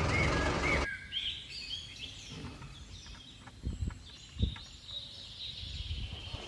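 Music cuts off within the first second, leaving birds chirping in the background. Over them come a few soft knocks of a plastic toy tractor being handled and backed up to a toy trailer, the last and loudest about four and a half seconds in.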